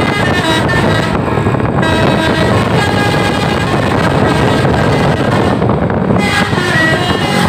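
Bus's 'basuri' telolet musical air horn sounding a run of changing notes over the noise of the bus.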